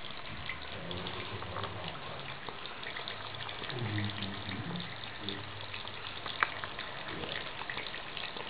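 Bathroom tap running steadily into a sink while a cat drinks from the stream. A single sharp click about six and a half seconds in.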